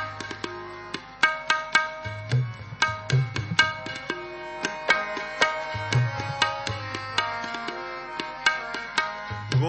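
Tabla playing a fast instrumental interlude of shabad kirtan: crisp right-hand drum strokes several times a second, with deep left-hand bass strokes that swell and rise in pitch. Sustained melodic notes run underneath.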